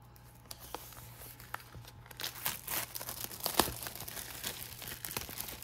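Clear plastic shrink-wrap being torn and peeled off a cardboard trading-card box, crinkling and crackling. It gets busier about two seconds in, with one sharp snap halfway through.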